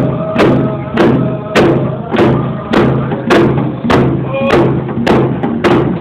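A group of hide hand drums struck together in a steady, even beat, about one and a half to two beats a second, with voices singing along.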